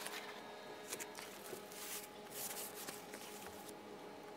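Faint rustling and scraping of packaging: a long plastic part being slid out of its cardboard box and its white protective wrap.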